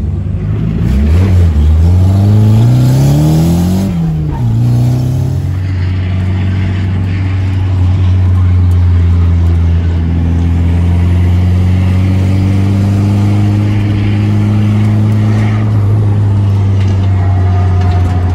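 Engine of a turbocharged Nissan 240SX (S13), heard from inside the cabin. It revs up hard twice in the first four seconds with a drop between, like a gear change, then runs at a steady, nearly constant speed.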